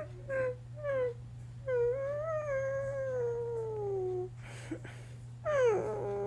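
A dog's whining, howl-like vocalizing: two short calls, then a long call that slowly slides down in pitch, a brief breath, and another call that drops sharply from high and holds steady.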